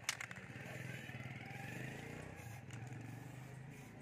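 A motor engine running steadily, with a sharp knock just at the start.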